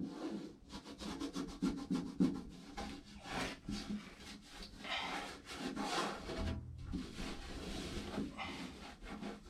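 Hand-tool work: quick, irregular scraping strokes, several a second, with brief pauses between runs.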